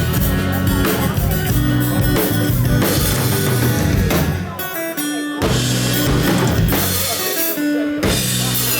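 Live rock band playing the instrumental intro of a song: drum kit, bass and guitar, with the band stopping briefly twice before coming back in.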